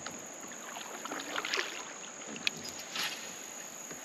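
Water sloshing and light splashing around a kayak on a river, with a few short sharp knocks and splashes, one about two and a half seconds in and another near three seconds.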